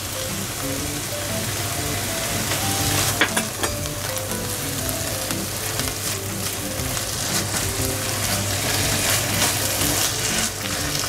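Soy-meat mince and chili bean paste sizzling in a non-stick frying pan while a spatula stirs and scrapes through it, with a few sharp scrapes about three seconds in. A light background tune plays underneath.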